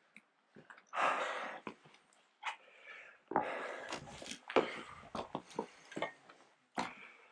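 A person breathing hard in a few rasping breaths, mixed with short knocks and scuffs of hands, boots and gear against rock during a scramble.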